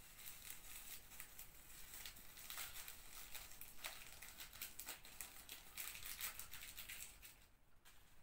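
Faint crinkling and tearing of small paper powder sachets being opened for a pastry dough, in quick sharp rustles that die down near the end.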